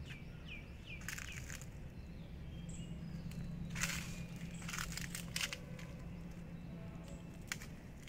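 Footsteps crunching on dry leaf litter and twigs, a handful of short crunches with the loudest about four seconds in. A small bird gives a few quick falling chirps in the first second, over a low steady hum.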